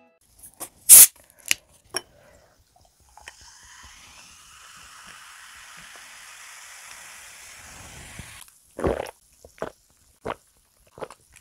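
A few sharp clicks, then cola poured over ice into a glass and fizzing steadily for about five seconds, followed by several gulps as it is drunk.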